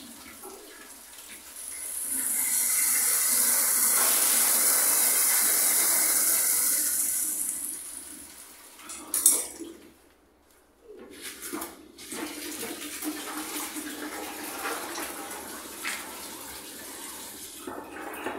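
Water poured out of a plastic bucket, gushing loudly for about six seconds and then tapering off, most likely down a drain to test it. A sharp knock follows partway through, then quieter handling sounds and trickling.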